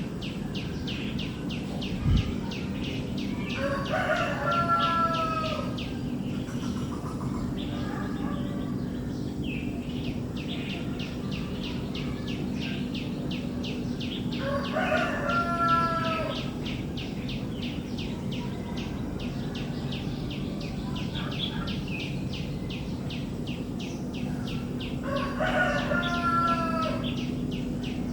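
A rooster crowing three times, about ten seconds apart, over a fast, even chirping high up and a steady low hum.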